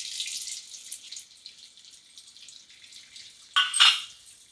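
Beaten eggs sizzling in hot oil, a hiss that starts loud and fades as the egg begins to set. A brief, louder burst of noise about three and a half seconds in.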